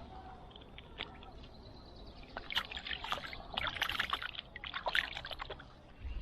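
Water splashing and dribbling in a quick, irregular run of small splashes that lasts about three seconds, starting a couple of seconds in.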